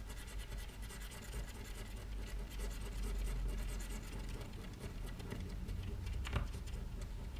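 A coin scratching the coating off a scratch-off card: steady, rapid fine scratching, with a sharper click about six seconds in.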